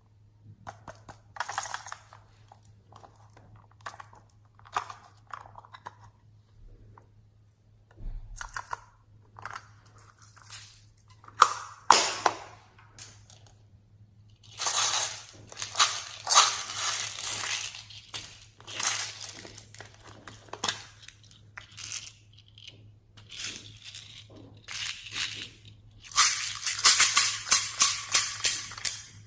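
Slime being squeezed and pressed by hand, giving irregular sticky clicks, pops and crackles, with a quick string of crackling pops near the end.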